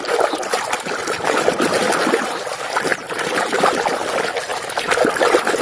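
Water trickling and splashing steadily as a muddy toy is washed by hand.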